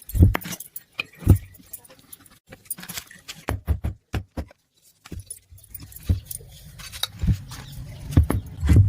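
Irregular metallic clinks and knocks, with a few dull thuds, from ceiling fan parts and tools being handled during a repair; there is a brief pause about halfway through.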